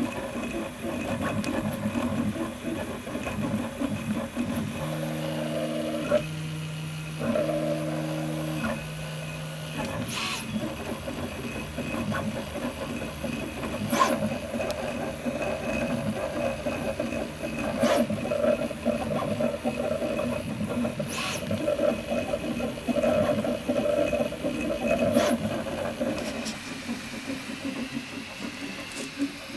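Prusa i3 MK3S+ 3D printer at work on a first layer: its stepper motors whine in steady, shifting tones as the print head moves, with a sharp tick every few seconds.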